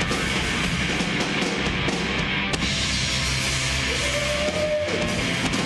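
Live rock band playing an electric guitar over a drum kit, with a held note about four seconds in.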